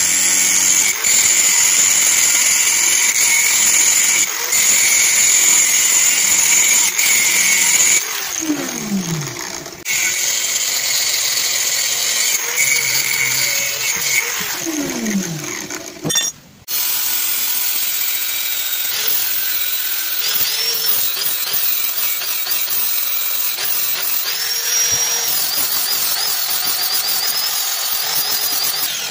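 Angle grinder with a thin cut-off disc cutting into an old steel spring, a steady high whine over a hiss of metal being ground. Twice the motor note sags and drops in pitch as the disc loads in the cut, and the sound cuts out briefly about two-thirds of the way through.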